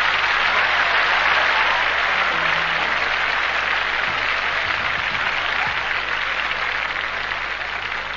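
Live audience applauding, slowly dying away.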